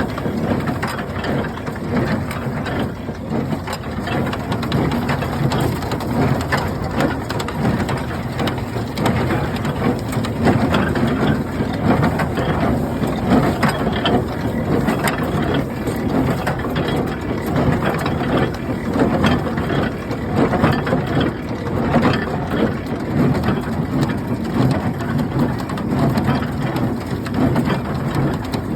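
International Harvester 47 twine-tie hay baler running, a steady mechanical clatter of gears and moving parts with many small clicks and knocks.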